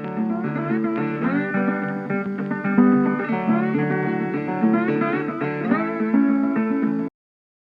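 A short guitar music sting: plucked guitar with notes sliding up in pitch, which cuts off suddenly about seven seconds in.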